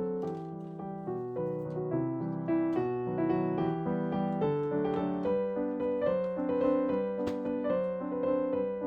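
Gentle background piano music, a soft melodic line with chords.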